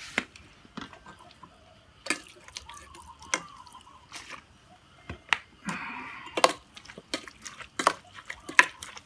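Liquid seasoning pouring and dripping from a small plastic bottle into an aluminium pot of salad, with a few clicks of the bottle and cap. In the last few seconds a metal spoon clinks and scrapes against the side of the pot as the salad is stirred.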